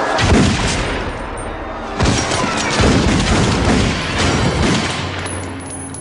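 A volley of gunshots in a TV drama soundtrack: about five loud shots, each with a ringing tail, spread over several seconds. The first comes about a third of a second in, and the rest follow from about two seconds on.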